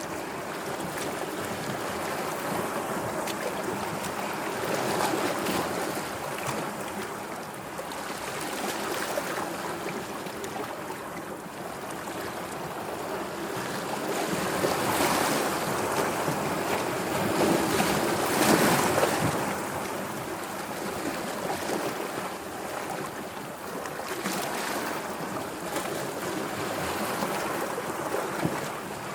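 Sea waves washing in as surf: a steady rush of water that swells and eases every few seconds, loudest near two-thirds of the way through.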